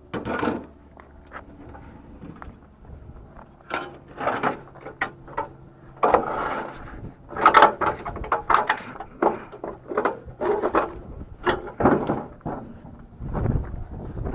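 Irregular clunks, knocks and scrapes of a heavy piece of scrap being shifted and manoeuvred into place, with the loudest knocks around the middle.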